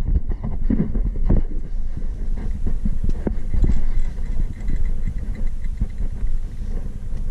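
Wind buffeting the microphone: an irregular low rumble with gusty swells.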